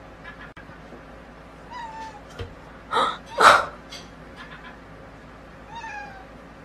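Domestic cat meowing: a short falling call, then two louder, harsher cries about three seconds in, the second the loudest, and another short falling call near the end.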